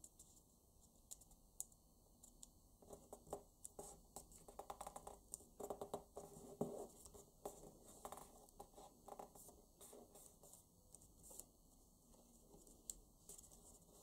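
Fingers folding and creasing a paper banknote on a wooden tabletop: faint crinkles, rubs and small ticks, busiest from about three to nine seconds in.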